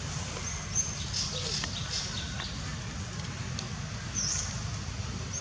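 Short high-pitched animal chirps and squeaks, several times, over a steady low rumble.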